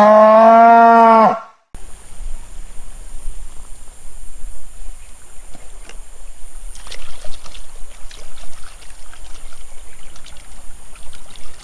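A cow gives one long moo that cuts off abruptly about a second and a half in. Then water splashes and trickles as a muddy plastic toy is swished by hand in shallow river water, with light scattered knocks that grow busier from about seven seconds in.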